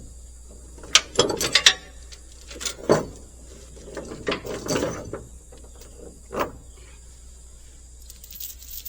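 Metal clanks and rattles of tie-down chains and hooks being handled and hooked on while a load is chained to a trailer, in irregular bursts with a loud clatter about a second in and a last clank about six seconds in.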